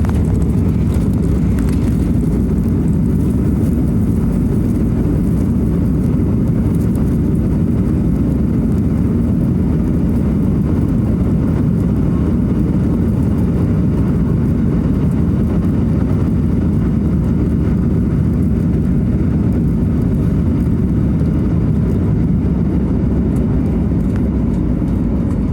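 Steady low rumble of a jet airliner heard from inside the cabin, even throughout with no distinct knocks or changes.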